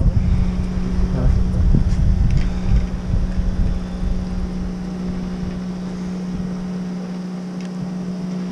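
Boat's outboard motor running with a steady hum, with wind rumbling on the microphone in the first few seconds before it eases.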